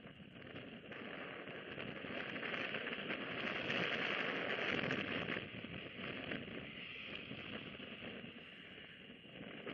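Bald eagles shuffling in their nest, with a crackling rustle of dry sticks, grass and feathers close to the microphone. It builds to its loudest about four to five seconds in, then eases off.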